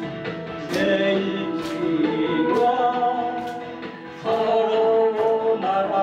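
A man singing into a microphone over an amplified karaoke backing track with a steady beat, the vocal line broken by a short pause about four seconds in.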